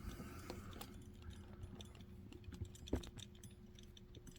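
Faint, scattered small metal clicks and taps from handling a padlock in a vise, with one sharper click about three seconds in.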